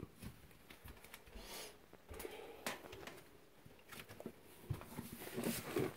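Quiet room tone with faint scattered clicks and rustles from a handheld camera being moved, and a faint breath near the end.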